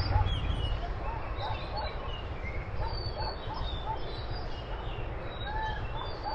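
Several birds calling, with short repeated chirps at a few different pitches, over a steady low rumble.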